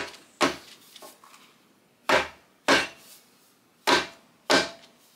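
A stack of about fifty paper sheets with a cardboard backing knocked edge-down on a hard surface to jog the pages even: five sharp knocks, mostly in pairs about half a second apart.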